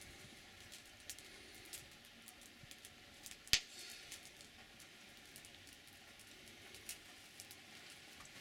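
Faint outdoor background with scattered small clicks and rustles of handling and movement, and one sharp click about three and a half seconds in.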